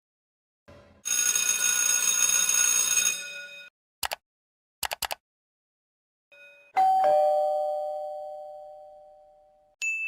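A string of separate sound effects. First comes a steady buzzing ring for about two and a half seconds, then a few short clicks. Then a two-note ding-dong chime, like a doorbell, fades slowly over about three seconds, and a short high ding starts at the very end.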